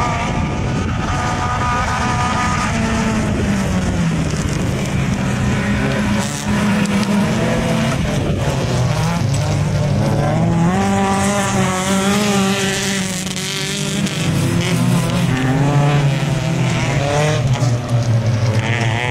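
Autocross race car engines at high revs, their pitch climbing and dropping again and again as the cars accelerate and lift off around the circuit.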